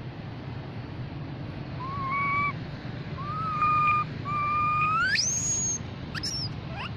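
Young macaque giving clear, whistle-like coo calls to its group: three level coos, the third sweeping up into a high squeal, then a couple of short squeaks near the end.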